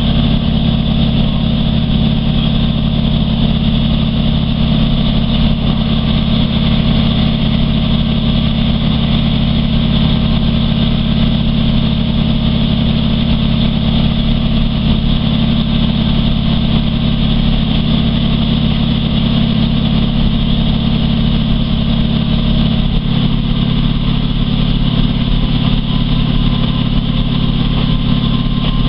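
Class 153 diesel railcar's underfloor Cummins six-cylinder engine running steadily, heard from inside the carriage. About three-quarters of the way through, the deepest part of the engine note eases off.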